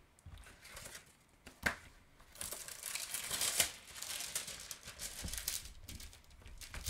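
Clear plastic cover film on a diamond painting canvas crinkling as it is lifted and smoothed flat by hand, with a single sharp tap shortly before. The crinkling is densest in the middle few seconds.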